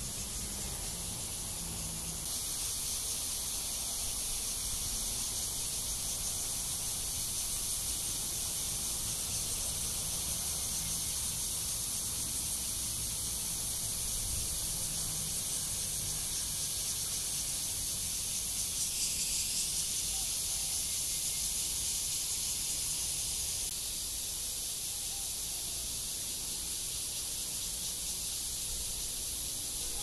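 Cicadas singing in a dense, steady chorus, a continuous shrill high-pitched hiss. It gets louder about two seconds in, dips and swells briefly about two-thirds through, and drops back a little near the end.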